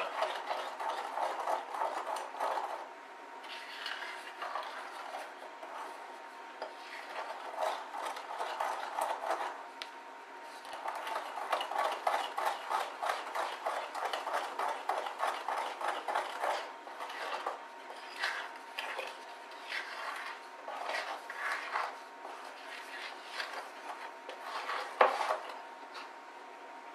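Metal spoon stirring and scraping round a glass mixing bowl, beating flour into chocolate batter in quick repeated strokes with a couple of short pauses. One sharp clack of the spoon against the bowl near the end.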